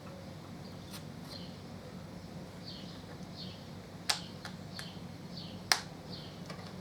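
Two sharp clicks about a second and a half apart from handling plastic packaging and a blade while cutting open a shrink-wrapped seal kit, over repeated short high chirps from a bird and a steady low hum.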